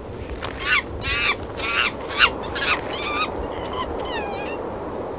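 Monkeys calling: a quick run of short, high, wavering calls in the first three seconds, then a couple of slower gliding calls, over a steady hiss.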